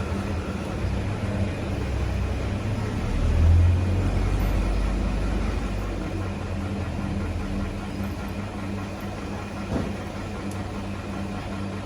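A machine running with a steady low hum that swells louder about three and a half seconds in, with a single knock near the end.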